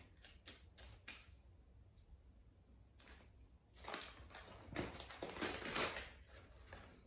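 Crumpled brown paper rustling and crinkling under a cat as it paws and pounces at a toy mouse, with a few light scrapes at first and a louder flurry of crinkling in the second half.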